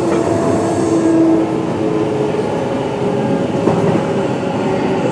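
Hanshin 1000 series electric train running, with the whine of its Mitsubishi IGBT-VVVF inverter and traction motors heard as several steady tones over continuous wheel-and-rail rumble, as the train approaches a station stop.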